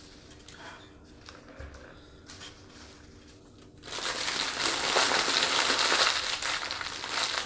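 Yellow paper burger wrapper being crumpled and folded by hand, a loud dense crinkling that starts about four seconds in, after a quiet stretch with a faint steady hum.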